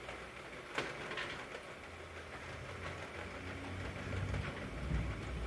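Waterfall cap sorter of an automatic capping machine running, its cleated belt carrying plastic caps up to the chute: a steady mechanical rattle with a sharp click about a second in, and a low hum that grows louder near the end.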